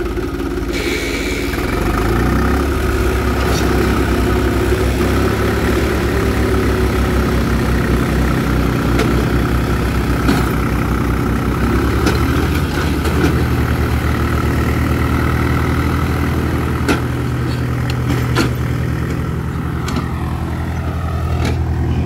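Swaraj 735 FE tractor's diesel engine working hard under load in deep sand. It revs up about two seconds in and then holds a steady, heavy pull, with a few sharp knocks along the way.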